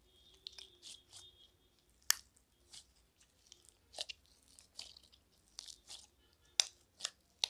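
Slime full of small foam beads being squeezed and kneaded by hand, the beads crunching and crackling in irregular bursts, with a few sharper snaps.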